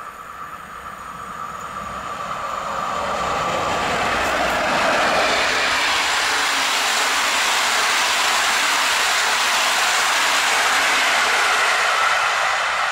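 Passenger train hauled by a PKP InterCity EP09 electric locomotive passing at speed: the sound grows louder over the first few seconds as it approaches, then holds as a steady rush of wheels running on the rails while the coaches go by.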